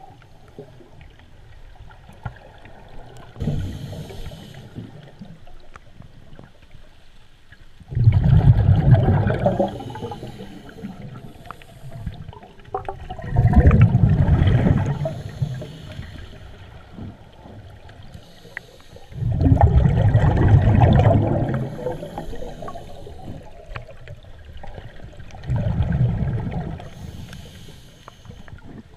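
A diver's scuba regulator exhaling underwater: bursts of bubbles gurgling and rumbling for two to three seconds each, repeating about every five to six seconds.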